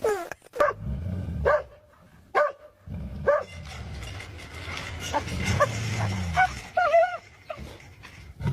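A dog giving short yips and barks roughly once a second, with a couple of wavering whines near the end, over a low rumble.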